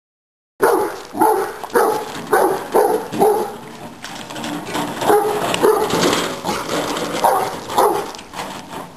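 Eight-month-old Cane Corso barking in a rapid series, about two barks a second, at a wheelbarrow being pushed toward it. The barking starts about half a second in.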